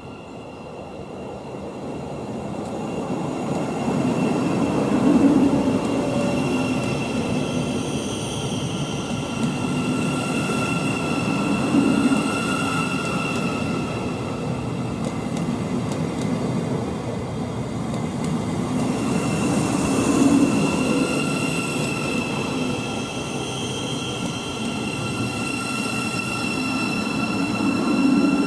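Thameslink Class 700 electric multiple unit running past close by. It grows louder over the first few seconds as it draws near, then holds a long, steady run of wheels on rail that swells and eases several times. High, steady whining tones sound over the rumble.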